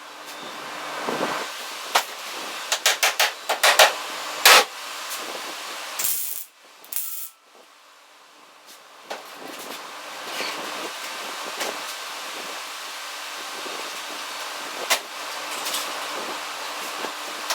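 Welder crackling and hissing in short bursts while a patch of sheet metal is welded onto a truck body, with a quick run of sharp snaps a few seconds in and a louder rasping burst near the middle.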